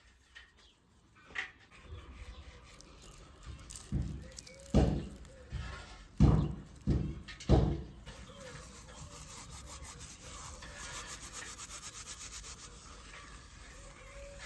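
Hands working raw lamb pieces on a metal tray: about six dull, heavy thuds as the meat is moved about, then a steady dry rustling as dried herbs are rubbed between the palms and crumbled over the meat.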